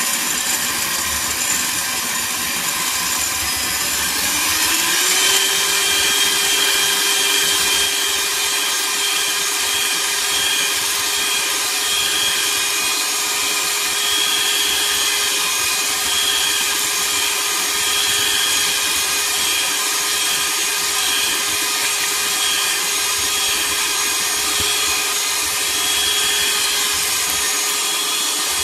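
Electric hand mixer running continuously, its beaters whipping a thick milk pudding in a pot. About four seconds in the motor's pitch rises, then holds steady.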